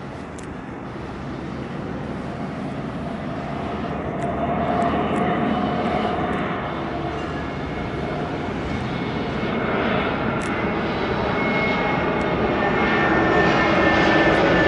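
Airbus A320 jet airliner on final approach, its engine noise growing steadily louder as it comes closer, with a steady whine coming in during the second half.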